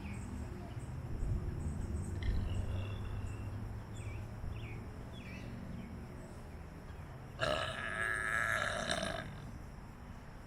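A person's loud, drawn-out burp about seven seconds in, lasting nearly two seconds, over a low background rumble.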